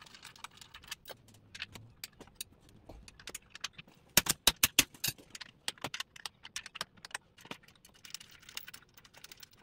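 Light metallic clicks and clinks of a captain's chair's steel seat-rail and bracket mechanism being handled and worked on, with a cluster of sharper clanks about four seconds in.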